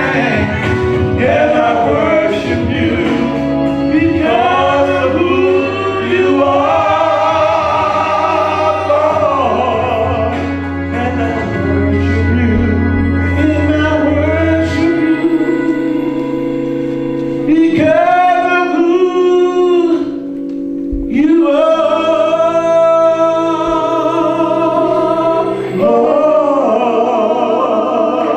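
Two men singing a gospel song as a duet into handheld microphones, over an instrumental accompaniment of held chords. A steady low bass note sounds under the voices until about halfway through, then falls away.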